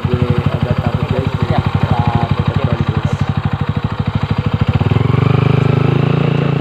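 Motorcycle engine running at low revs with a rapid, even putter; about five seconds in it picks up revs and the pulses merge into a steadier, slightly louder drone.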